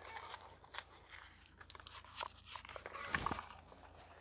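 Light handling noises from unboxing a cleaning kit: soft crinkling of plastic packaging with scattered small clicks and taps, and one soft knock about three seconds in.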